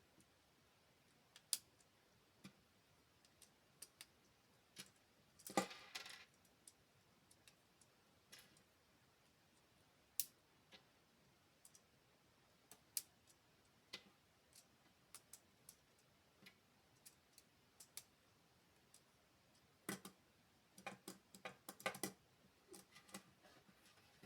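Small plastic LEGO pieces being handled and snapped together: scattered soft clicks, a brief rattle of loose pieces about five and a half seconds in, and a quick run of clicks near the end.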